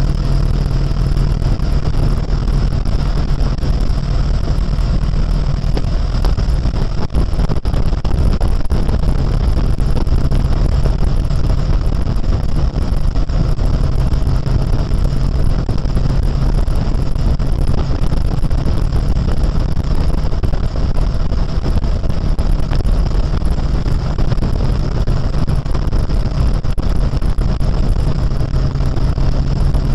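Harley-Davidson Road King's V-twin engine running steadily at highway cruising speed, heard from on board the bike.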